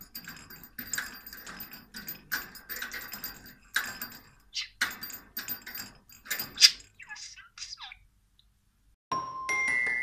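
Budgie playing with its cage toys: a string of quick clicks and small bell jingles as it pecks the toys, with a few short warbling chirps near the end. The sounds stop about eight seconds in, and a second later a glockenspiel tune begins.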